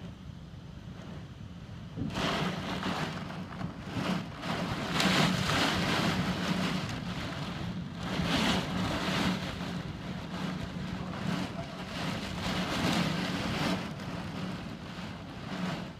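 Storm of wind and heavy rain: a broad rushing noise sets in about two seconds in and surges in gusts every few seconds, over a steady low hum.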